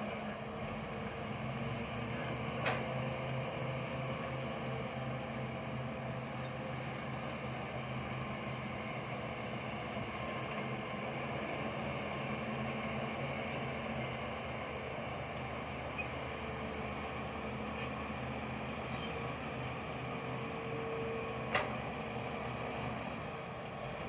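Bulldozer's diesel engine running steadily, a constant drone with two short sharp knocks, one about three seconds in and one near the end.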